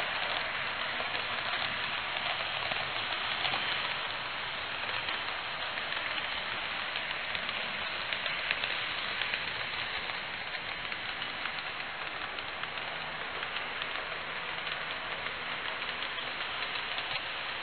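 Model train running on the layout's track: a steady rushing rattle of wheels on rail, with faint irregular clicks.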